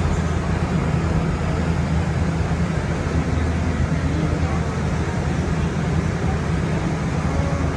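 Steady running noise of a moving Seattle light rail car heard from inside the cabin: an even low rumble of wheels on rails and running gear.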